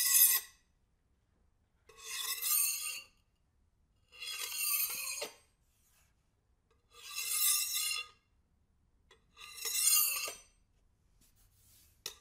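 A heavy butter knife scraped across a kitchen countertop past a close microphone, five passes about a second long, each swelling and fading with a ringing, whistling edge, roughly every two and a half seconds. The knife is dragged as a 'regular flyby', raw material for a sci-fi vehicle fly-by effect.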